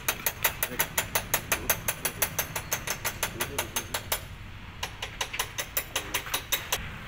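Rapid, even metallic clicking from a mechanic's hand tool, about five clicks a second, working on the garbage truck's battery terminals and wiring. It stops briefly about four seconds in, then resumes more dully until shortly before the end.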